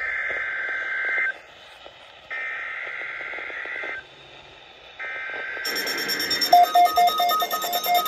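NOAA weather radio sending the SAME digital header of an Emergency Alert System weekly test: three buzzy data bursts, each about a second and a half long with about a second's pause between them. Near the end an alert tone starts, beeping rapidly.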